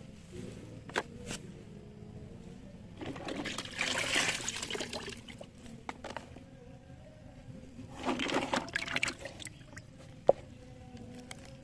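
Water pouring and splashing over a plastic toy truck as it is washed, in two spells, one about three seconds in and one about eight seconds in. A few light clicks and one sharp plastic click near the end.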